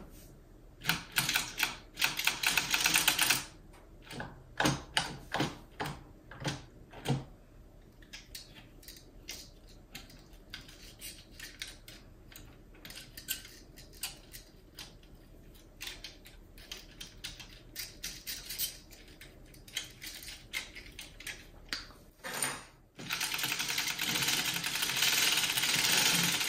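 Hand-cranked Dean and Bean circular sock knitting machine clattering as its needle cylinder is turned: a dense, rapid clicking of the needles for a couple of seconds about a second in, and again steadily over the last few seconds. In between come scattered single clicks as the needles are handled.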